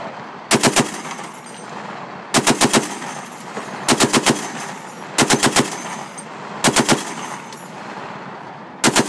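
HMMWV-mounted M2 .50-caliber machine gun firing short bursts of three to five rounds, six bursts about one and a half to two seconds apart, the last starting near the end. Each burst is followed by a lingering echo.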